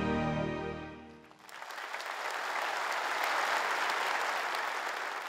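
Orchestral music fading out over about the first second, then an audience applauding steadily.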